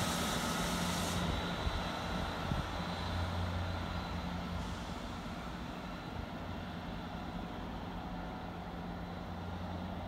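Class 158 diesel multiple unit's underfloor diesel engines running with a steady low hum, fading as the train pulls away into the distance.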